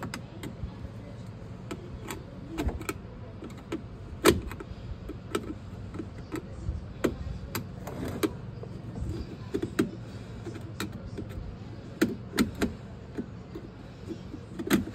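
Irregular clicks, clanks and knocks of tools and parts being handled during work at a kitchen sink, over a steady low hum. The sharpest knock comes about four seconds in, with a cluster of knocks around twelve seconds.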